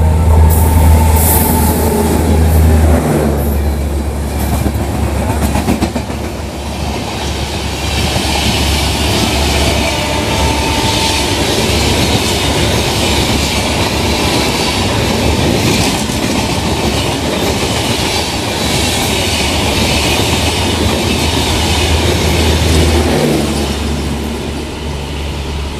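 Rajdhani Express passing at speed behind a WAP-7 electric locomotive: a deep hum as the locomotive goes by in the first few seconds, then a steady rush with wheel clatter over the rail joints as the coaches roll past, easing off near the end as the last coach clears.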